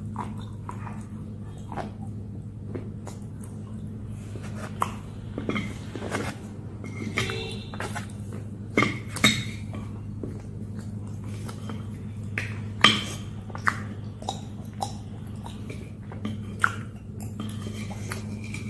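Close-up mouth sounds of chewing and crunching fried bitter gourd (karela fry), wet and crackly, with scattered sharp clicks and a few louder crunches about nine and thirteen seconds in. A plastic spoon works in a glass bowl of sauce, over a steady low hum.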